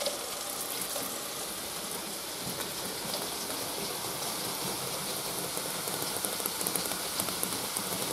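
Water hissing and spraying steadily from Gardena drip-irrigation emitters on a greenhouse supply line, running at full flow just after the water timer opened.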